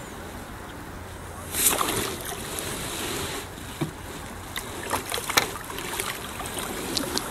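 A hooked rainbow trout splashing at the surface close in while being played on a fly rod: a sharp splash about one and a half seconds in, then irregular smaller splashes and clicks. Steady wind hiss underneath.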